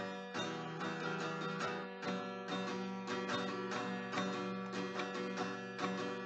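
Background music: plucked acoustic guitar, note after note in a steady pattern.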